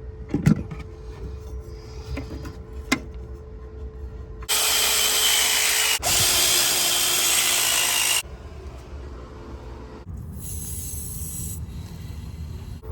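A couple of sharp knocks, then a power tool runs hard for about four seconds, stopping for an instant midway. The tool is used during plumbing work.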